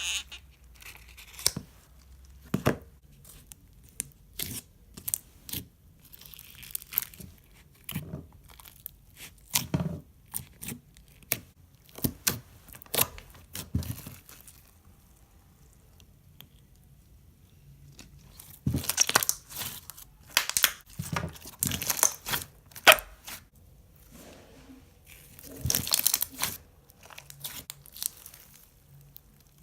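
Homemade glitter slime being worked by hand, giving sticky clicks, pops and crackles: scattered at first, then in dense bursts later on.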